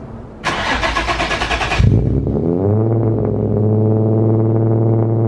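Nissan 350Z's V6 cold start: the starter cranks for about a second, the engine catches with a loud rev flare, then the revs drop and it settles into a steady idle.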